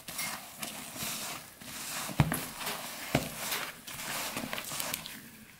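Hand working risen, sticky yeast dough in a plastic bowl: wet squelching strokes as the proofed, airy dough is pulled up and folded, with two sharper knocks about two and three seconds in.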